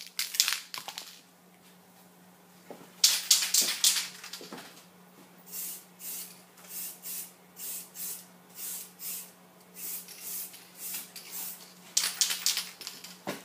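Aerosol spray paint can hissing: one longer spray about three seconds in, then a run of short bursts about two a second, and another longer spray near the end.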